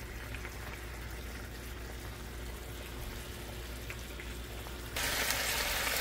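Pork chops simmering in a pan of dark sauce, a steady sizzle and bubbling that turns suddenly louder about five seconds in.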